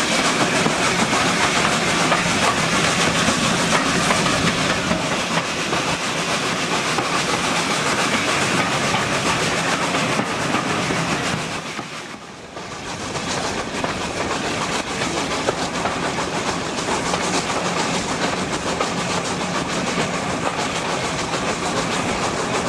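Steam-hauled train in motion, a steady loud rush of running noise that dips briefly about halfway through and then comes back.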